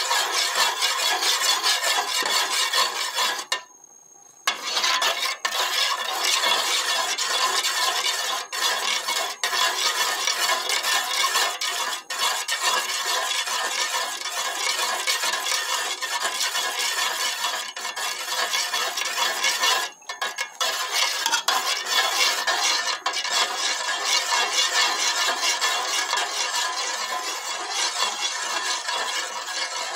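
A metal spoon stirring a thin milk mixture in a metal pot, scraping and clinking against the bottom and sides without letup. It pauses briefly twice.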